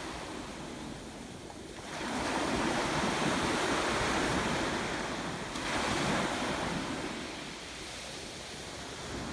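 Sea waves washing onto the shore, surging about two seconds in and again just before six seconds, then ebbing, with wind on the microphone.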